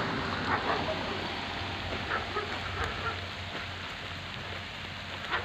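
Steady rain falling, an even hiss across the open countryside, with a few faint short calls in the distance about one to three seconds in.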